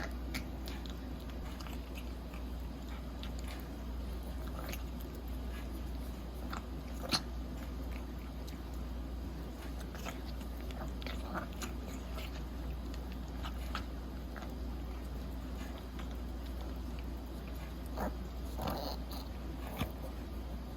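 A Pomeranian chewing and biting, heard as scattered short crunchy clicks, with one sharper click about seven seconds in and a cluster of clicks near the end.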